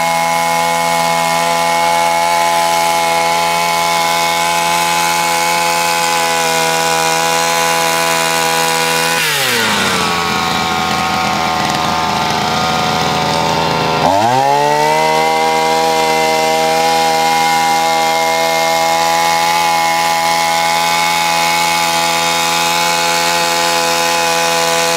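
Small two-stroke engine of a walk-behind mini power sweeper running at high revs, driving its brush through snow. About nine seconds in it drops to idle, then revs back up about five seconds later and runs on steadily.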